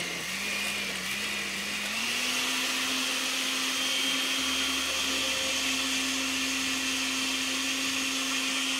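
Countertop electric blender running, liquefying a chile marinade of rehydrated dried chiles, garlic, orange juice and cooking liquid. Its motor is a steady hum that steps up in pitch about two seconds in and then holds.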